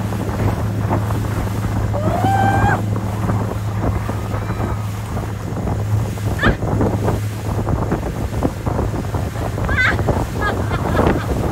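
Motorboat engine running steadily at speed, with wind buffeting the microphone and the wake churning. A few brief shouts and whoops from riders on a towed inflatable banana boat rise above it.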